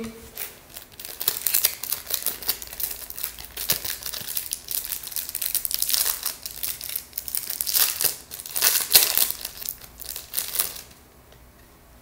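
Packaging of the Wi-Fi adapter's driver CD crinkling and rustling as it is handled by hand, in irregular crackly bursts that stop about a second before the end.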